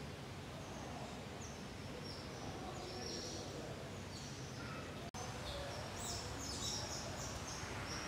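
Many small birds chirping, giving short, high, repeated calls over a steady background hiss, with the calls coming thicker after a brief break about five seconds in.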